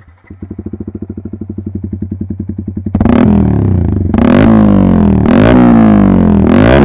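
Yamaha R15M's 155 cc single-cylinder engine through an SC Project full-system exhaust, idling with an even putter. About three seconds in, it is revved hard with a sudden jump in loudness, then given three sharp throttle blips about a second apart, the pitch falling back after each.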